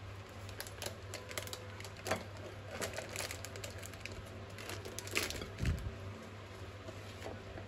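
Plastic food packets crinkling and rustling as they are pressed down into a glass bowl, with scattered sharp clicks and taps. A steady low hum runs underneath.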